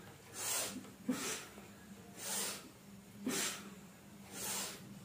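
A person breathing hard and fast through the nose while doing repeated cobra-pose (Bhujangasana) lifts, breathing in on each lift and out on each lowering. There are about five loud breaths, one roughly every second, and every other breath starts more sharply.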